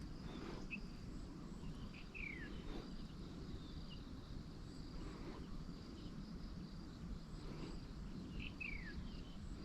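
Outdoor ambience of steady high insect trilling, with a bird giving short chirps and a falling whistled note twice, about six seconds apart, over a low background rumble.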